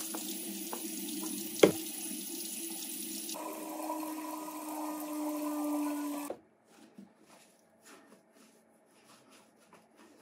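Water running from a tap in a steady rush that changes tone about three seconds in and cuts off abruptly after about six seconds, with one sharp click near the two-second mark. Faint light clicks and taps follow.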